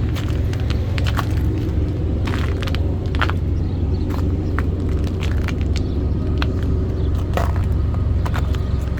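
Semi truck's engine droning steadily, with scattered short clicks and rattles on top.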